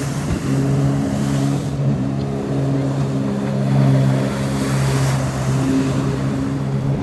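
2021 Sea-Doo Spark Trixx personal watercraft, its three-cylinder Rotax 900 ACE engine running at a steady speed, with hiss and splash from the jet and hull on the water.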